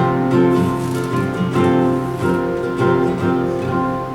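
Acoustic guitar strummed in steady chords, a short instrumental passage with no singing.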